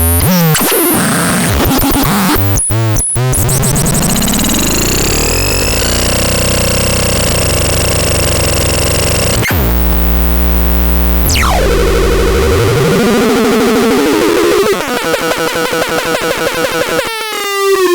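Synthesizer playing buzzy electronic tones and noise, with pitch sweeps rising and falling. A deep steady drone comes in about halfway, then a fast falling sweep, and the sound turns choppy and stuttering near the end.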